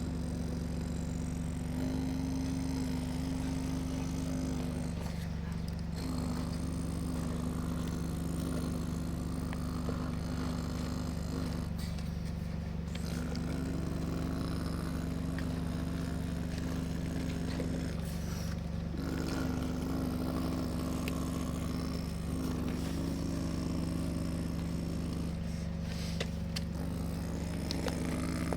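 An excavator running steadily as it works, its motor pitch stepping up and down every few seconds as the load changes, with a few faint clicks.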